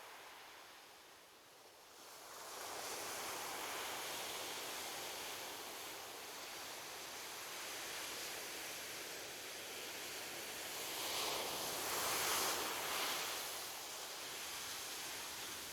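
Ocean surf washing onto a beach: a steady hiss of waves that swells about two seconds in, with a louder wave breaking and washing up around two-thirds of the way through.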